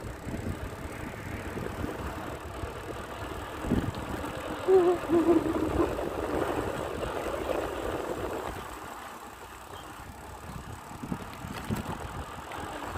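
Steady road and wind noise on a moving bicycle, with a short wavering pitched sound about five seconds in.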